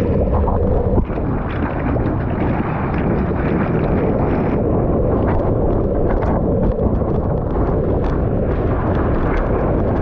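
Surfboard riding a wave: whitewater and spray rushing past a camera mounted on the board, with wind buffeting the microphone. Many small splashes tick against it throughout.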